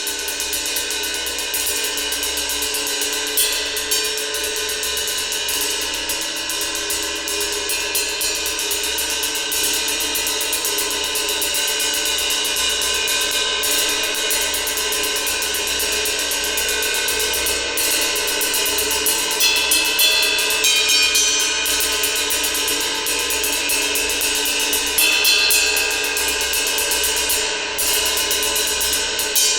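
Gong played continuously: a dense, sustained wash of many overlapping ringing tones that swells slightly in places without ever dying away.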